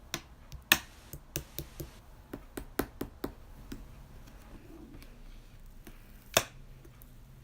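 Light clicks and taps from hands handling slime-making containers and tools, with two much louder sharp clicks: one about a second in and one near the end.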